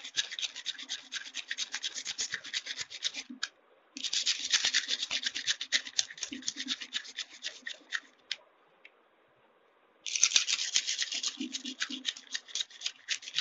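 A folded piece of abrasive paper rubbed quickly back and forth along the blade of a small pair of scissors to sharpen it. The rapid rasping strokes come in three bouts with short pauses between them.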